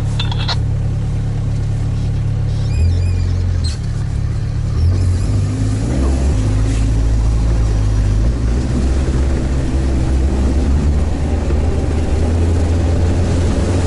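Sherp amphibious all-terrain vehicle's small diesel engine running under load, heard from inside the cab as a loud steady drone; its revs shift up and down a few seconds in.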